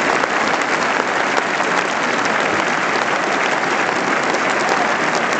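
Large stadium crowd applauding, a dense, steady wash of many hands clapping.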